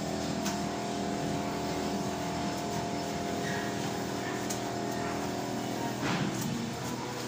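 A motor runs steadily with a pitched hum, with a few faint clicks and a brief swish about six seconds in.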